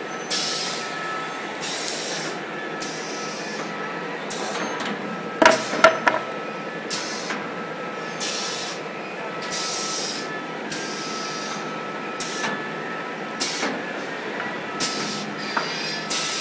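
Automatic paper tube edge polishing machine running: a steady mechanical noise with short hissing bursts every second or two. A few loud knocks come about a third of the way in.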